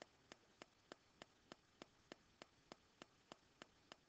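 Faint, even ticking, about three ticks a second, over near silence.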